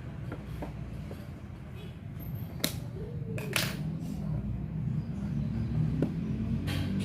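Toy packaging being opened by hand: a few short, sharp rips or snaps, two close together near the middle and one near the end, over a steady low hum.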